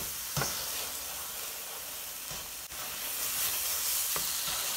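Mozzarella and cream cheese sizzling in a nonstick frying pan over low heat, with a steady hiss, while a silicone spatula scrapes and stirs them, giving a few light taps against the pan.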